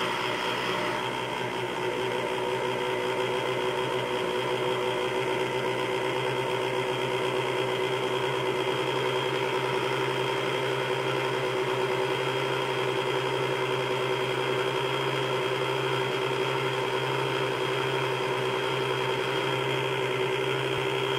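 Electric countertop blender with a glass jar running steadily at one speed, mixing a liquid ice cream base of condensed milk, all-purpose cream and vanilla. Its motor gives a steady hum and whine throughout.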